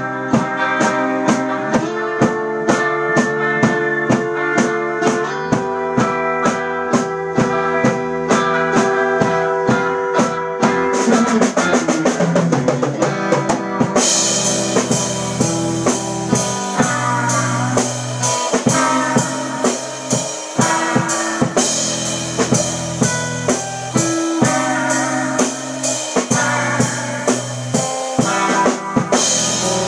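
A band playing an instrumental surf-rock number live: electric guitars over a drum kit keeping a steady beat. About halfway through, cymbals come in and the sound gets brighter.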